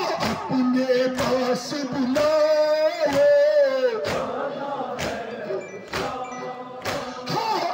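Men chanting a nouha, a Shia lament, with a lead voice holding a long note about two to four seconds in. The crowd's matam chest-beats land together about once a second.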